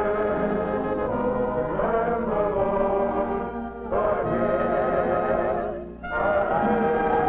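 Orchestral music with brass, playing held, slightly wavering chords that break off briefly about four seconds in and again near six seconds.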